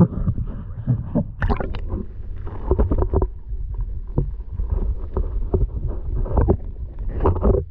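Kayak hull crunching and scraping on thin, melting lake ice: irregular cracks and knocks over a low rumble, as the ice sags under the kayak and water comes up.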